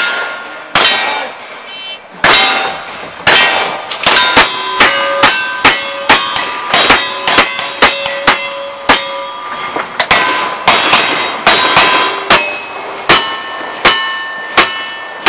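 Rapid string of black-powder gunshots, first from a rifle and then from a revolver, each followed by the ring of a struck steel target. The shots come about two a second through the middle.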